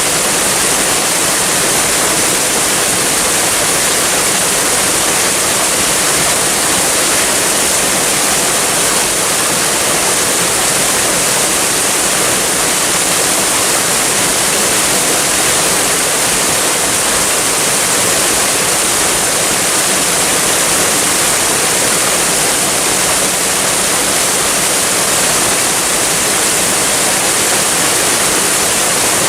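Waterfall, water falling and splashing in a steady, unbroken hiss.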